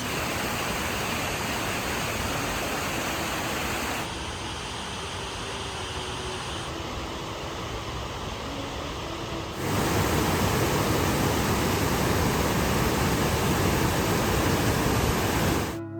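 Steady rushing water, an even hiss. It shifts abruptly twice and is loudest in the last stretch, before cutting off just before the end.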